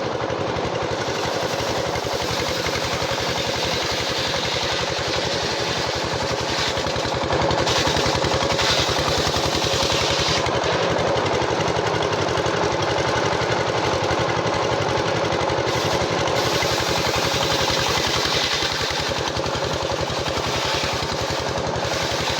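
Sawmill machinery running steadily: a fast-pulsing, engine-like mechanical drone, a little louder from about a third of the way in.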